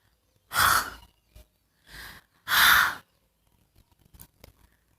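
A person giving two short, breathy, voiceless puffs of breath about two seconds apart, like a spoken /h/ letter sound.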